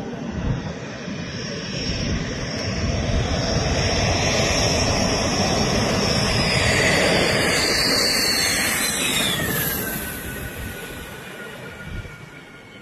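Dassault Rafale fighter jet's twin Snecma M88 engines approaching low and passing by. The rumble builds to its loudest about seven seconds in, a high whine drops in pitch as the jet goes past, and the sound then fades as it moves away.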